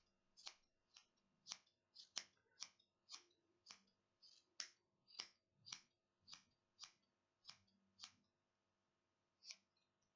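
Small scissors snipping as they trim a yarn pompom into shape: a run of about twenty faint, sharp snips, roughly two a second, with a short pause near the end.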